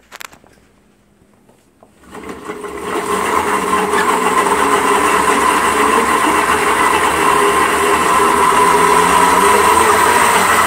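A short knock, then a pedal-powered Rock the Bike Fender Blender spinning up from about two seconds in as the rider pedals. The blender blades and drive whir, rising over a second or so to a steady high hum while churning a thick frozen smoothie.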